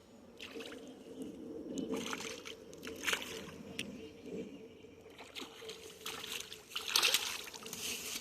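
Hooked bass splashing and thrashing at the water's surface as it is brought in and landed: irregular splashes, the loudest about three seconds in and near seven seconds. A faint steady hum runs underneath.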